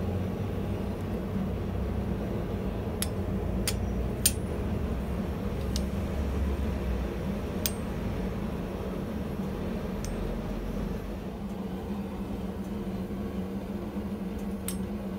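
Steel dies and guides of a blacksmith's guillotine tool giving a handful of light, separate clinks as they are handled and fitted together by hand, over a steady low hum.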